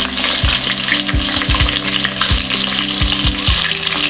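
Breaded chicken deep-frying in hot oil: a steady, dense crackling sizzle.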